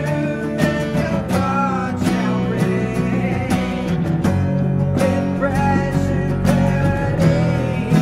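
Music: a song led by guitar, with a steady beat.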